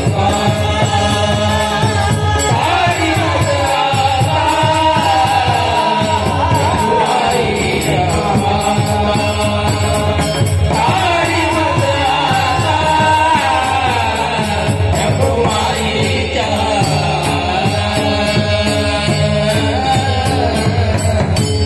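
A male singer sings a Marathi devotional abhang with gliding, ornamented melody over instrumental accompaniment, while percussion keeps a steady beat.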